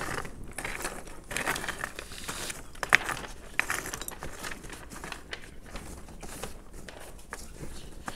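Charcoal fire crackling in a brick grill pit while the burning lumps are poked and shifted with a wooden stick. The sound is irregular clicks and rustling, with one sharp knock about three seconds in.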